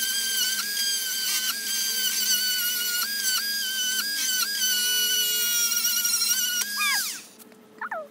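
Cordless drill driving a screw into a wooden post: a steady high motor whine that dips briefly in pitch several times as the screw bites. It winds down about seven seconds in, with one more short burst just before the end.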